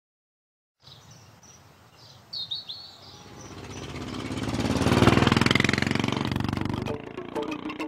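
Birds chirping over faint rural ambience, then a motorcycle engine approaching, growing louder to a peak about five seconds in and fading away as it passes.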